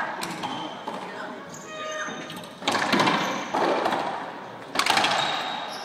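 Racquetball rally: several sharp cracks of the ball struck by racquets and hitting the court walls, each ringing out in the echoing court, the loudest about three and five seconds in. Between them come short squeaks of sneakers on the hardwood floor.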